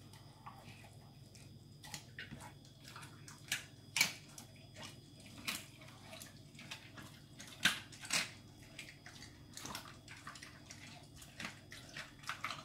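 German Shepherd puppy eating raw food from a slow-feeder bowl: irregular wet licking, chewing and smacking, with sharper clicks about four seconds in and again near eight seconds.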